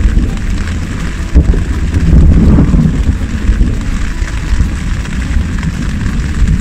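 Thunderstorm: steady rain hiss under a loud low rumble that swells and eases, with a sharp knock about a second and a half in.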